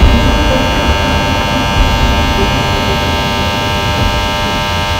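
Loud steady drone of many held tones over a low rumbling noise.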